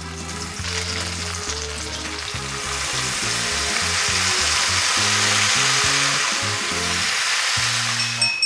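Battered angelica tree shoots (dureup) sizzling as they deep-fry in hot oil in a pan, as tempura. The sizzle starts about half a second in, grows louder, and cuts off suddenly near the end, over quiet background music.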